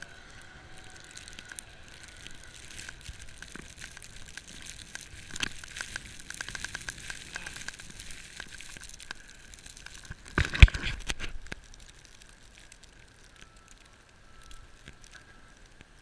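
Crunching and crackling of footsteps through deep snow in a blizzard, with wind rushing over an action camera's microphone. A loud thump on the camera comes about ten and a half seconds in, and a faint steady high tone sits under the noise.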